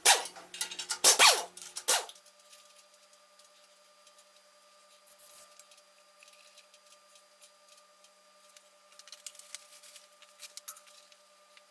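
Air impact wrench run in two short bursts on the main bearing cap bolts of a 5.9 Cummins diesel block, then faint rubbing as a rag wipes the freshly honed cylinder bores.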